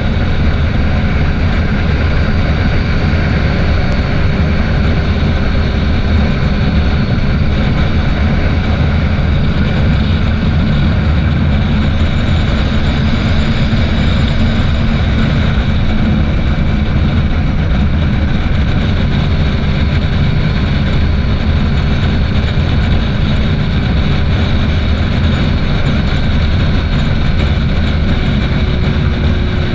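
Yamaha FZ6 motorcycle's inline-four engine running at steady cruising speed, around 100–120 km/h, heard under a constant rush of wind over the rider's camera microphone.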